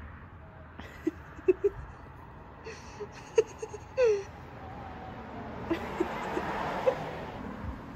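Short, high-pitched whimpering vocal squeaks in small bunches, the loudest a brief falling cry about four seconds in. A rushing noise like a passing car swells and fades in the second half.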